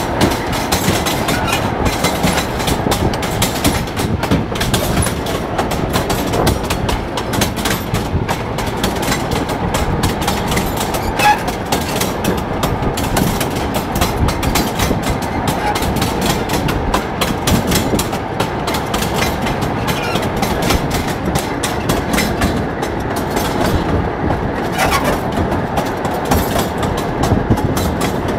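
Wheels of a motor rail draisine knocking steadily on the rails as it runs along the track, with a continuous rumble and rattle of the moving trolley.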